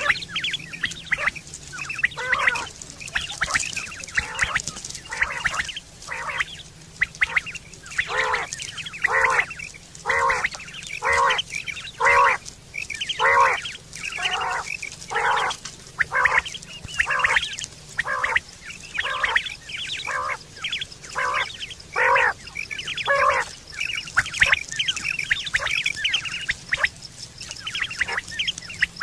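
Common quail calling over and over in a long series of short calls, about one a second.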